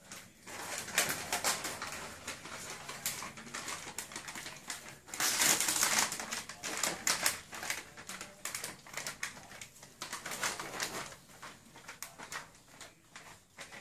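Crisp packet crinkling and rustling as a Labrador puppy's head moves around inside it: a dense run of crackles, loudest about five to six seconds in.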